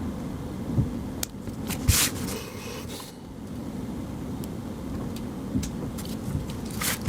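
Small scissors of a Victorinox Classic SD snipping through fingernails: a few sharp, irregular snips, the loudest about two seconds in and several close together near the end, over a steady low rumble.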